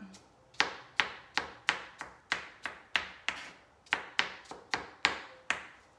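Kitchen knife chopping soft zucchini flesh and seeds on a cutting board, a steady run of sharp strikes about three a second.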